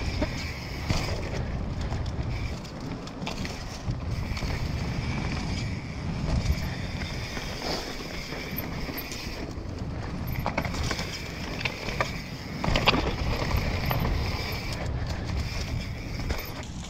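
YT Capra carbon mountain bike descending a dirt trail: tyres rumbling over packed dirt and dry leaves, wind buffeting the microphone, and repeated sharp knocks and rattles of the bike over bumps, the loudest about thirteen seconds in.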